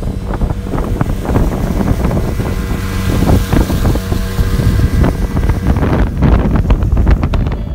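Motorboat running under way, with heavy wind noise buffeting the microphone.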